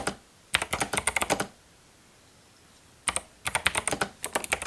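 Rapid typing on the 8BitDo Retro Mechanical Keyboard (Model M edition), its mechanical key switches giving a crisp tactile click with each stroke. Two bursts of quick keystrokes with a pause of about a second and a half between them.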